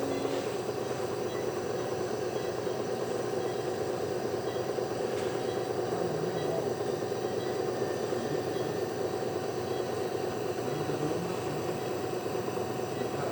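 Nebulizer machine running with a steady mechanical hum, delivering medicated mist for a baby's cough and tight breathing.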